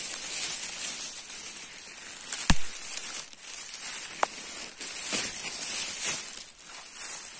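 Rustling and crackling of forest-floor leaves and twigs, irregular, with one sharp knock about two and a half seconds in and a fainter click a little later.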